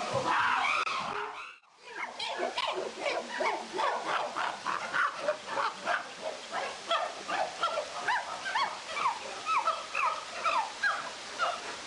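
Many short animal calls, each a quick sweep up or down in pitch, overlapping several a second, after a sudden break about two seconds in.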